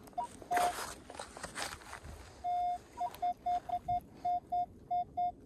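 Minelab Equinox 900 metal detector giving its target tone over a buried object: one longer beep, then a string of short, repeated beeps at the same pitch as the coil is swept back and forth over a high-conductor signal reading in the high 70s.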